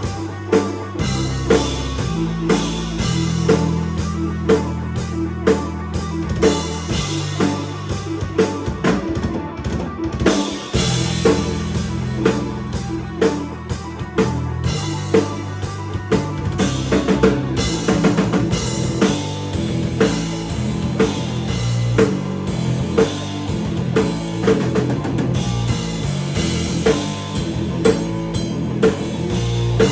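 Live rock band playing, with the drum kit to the fore: steady kick and snare beats over a sustained bass line.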